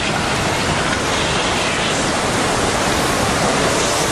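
Loud, steady rushing roar of tsunami floodwater pouring through.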